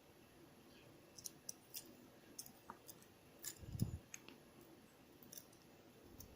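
Faint scattered clicks and small scrapes from handling a worn motorcycle brake pad whose friction material has come unstuck, with one soft thump near the middle.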